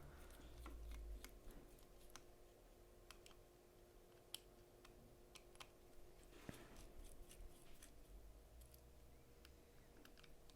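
Near silence with faint, scattered small clicks and ticks: a Spyderco Delica folding knife being taken apart by hand with a small driver.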